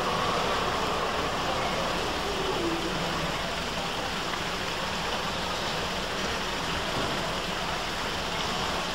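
Steady city street noise, an even rush with no distinct events, as a TFS low-floor tram creeps slowly along its street track.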